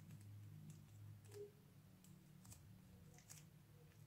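Near silence: a handful of faint, sharp clicks as a lump of soft foam modelling clay like Model Magic is stretched and kneaded in the hands, over a low steady hum.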